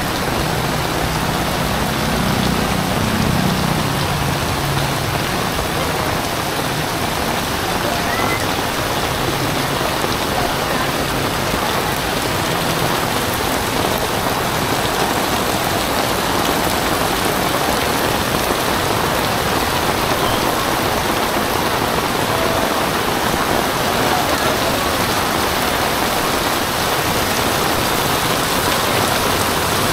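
Heavy rain pouring down steadily, a dense even hiss of rain striking surfaces.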